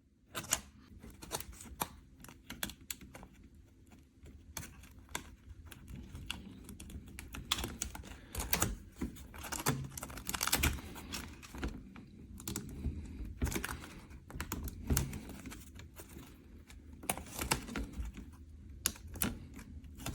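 Irregular clicks and light taps of an IBM Model M keyboard's plastic and metal parts being handled while it is reassembled, with its ribbon cables and circuit board being fitted.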